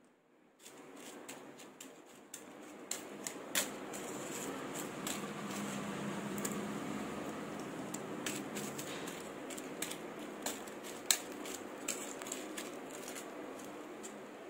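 Sticky fried sweet balls being rolled by hand through granulated sugar in a steel plate: sugar granules scraping and rustling, with many scattered light clicks and taps against the metal. A steady low background hum runs underneath.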